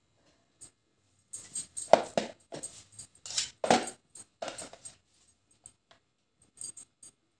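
Metal palette knife clinking and scraping against the cake plate and cream bowl while spreading whipped cream, a quick run of short strokes in the middle, then a few faint ticks near the end.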